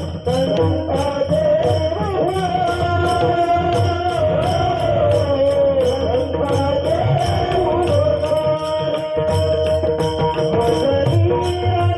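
Devotional kirtan music: voices singing a bending melody over hand cymbals struck in a steady beat of about two to three strokes a second, with a drum underneath.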